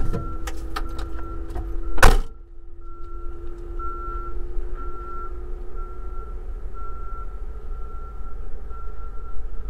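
A vehicle door clicks and then slams shut about two seconds in. Through the whole stretch a backup alarm beeps evenly, about once every three quarters of a second, over a steady low hum.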